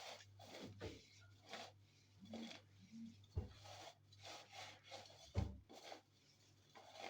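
Faint, irregular rubbing and scraping of hands handling things, with two soft thumps about three and a half and five and a half seconds in.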